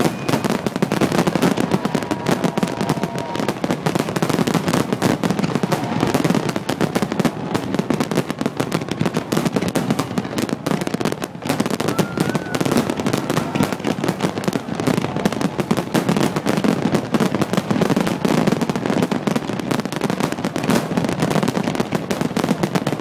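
Dense barrage of aerial firework shells bursting and crackling, sharp bangs following one another many times a second without a break.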